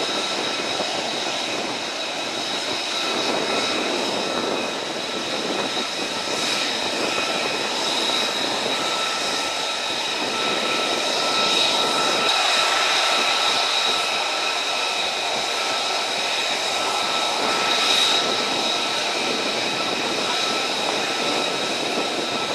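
F-35 Lightning II fighter jets taxiing in formation, their engines running with a steady high turbine whine over a broad jet rush.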